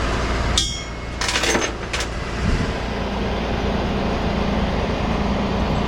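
Tow truck engine idling steadily, with a sharp metal clink about half a second in, a short rattle and another clink around a second or two in, typical of tie-down strap hooks and hardware being handled.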